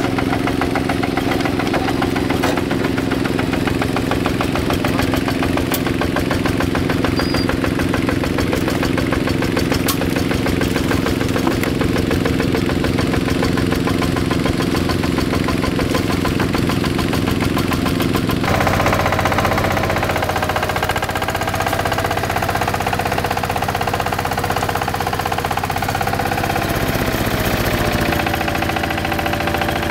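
Two-wheel hand tractor's single-cylinder diesel engine running steadily with a fast chug. About 18 seconds in the sound changes abruptly, and a thin whine that slowly wavers in pitch rides over the engine.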